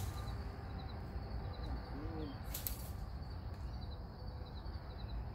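Outdoor creek-side ambience: a bird's short cooing call about two seconds in, over a faint, evenly repeating high chirping and a steady low rumble, with a brief hiss just before three seconds.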